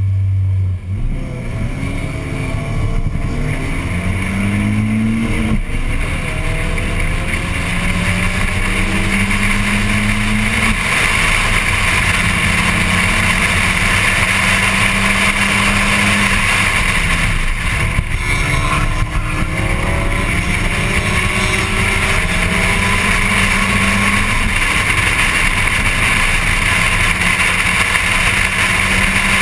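Volkswagen Golf Mk1 1.8-litre four-cylinder racing engine held at steady revs on the line, then about a second in accelerating hard, the pitch climbing and dropping back at each gearchange before running at high revs, with wind and road noise throughout.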